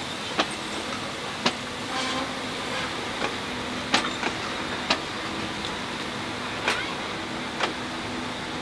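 Passenger coaches rolling slowly past, with a steady rumble and sharp, irregular clicks and knocks from the wheels over rail joints and pointwork.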